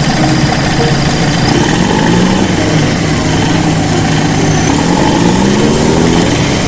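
Vehicle engine sound running steadily, its pitch slowly rising and falling.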